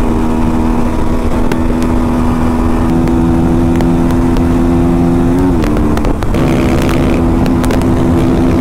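Motorcycle engine running at a steady high road speed, with heavy wind rumble on the microphone; about five and a half seconds in the engine note dips briefly, then settles back to the same pitch.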